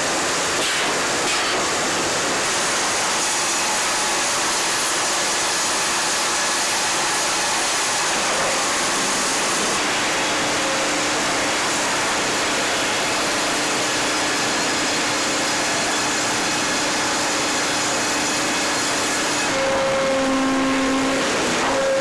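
Sawmill headrig machinery running steadily as a saw cuts through a log, a dense, continuous mechanical whir. About twenty seconds in, the high hiss drops away and a low steady hum comes in.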